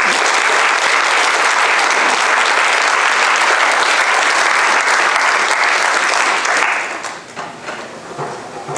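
Audience applauding: dense, steady clapping that dies away about seven seconds in, leaving a few scattered claps.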